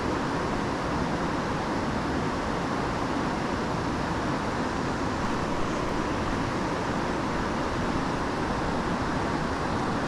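Steady rushing of river current pouring through rocky riffles, an even, unbroken noise.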